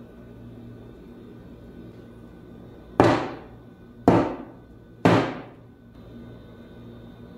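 A metal cake pan full of cheesecake batter knocked down on the table three times, about a second apart, each knock with a short ringing fade: tapping out air bubbles before baking.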